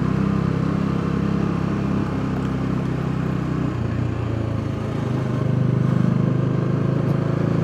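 Motorcycle engine running steadily while riding, easing off about four to five seconds in and picking up again a second later.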